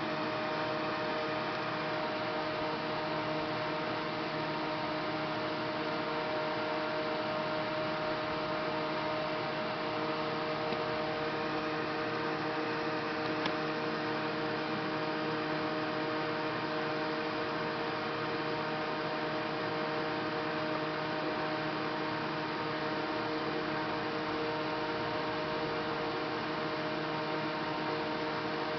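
Steady electrical hum: several fixed tones over an even hiss, unchanging throughout, with one faint click about halfway through.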